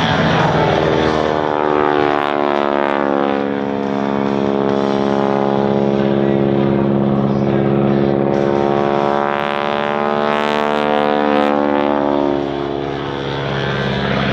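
Boeing Stearman biplane's radial engine and propeller running at display power, the pitch of its engine note slowly rising and falling as the aircraft manoeuvres through its aerobatics.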